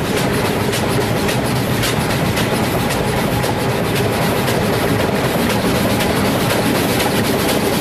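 Steam locomotive running along the track: a steady heavy rush of running noise with rapid, irregular clicks and knocks from the wheels and running gear.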